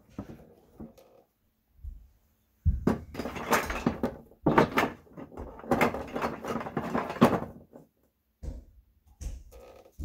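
Rummaging noise: objects rustling and clattering close to the microphone for about five seconds, followed by a few separate knocks near the end.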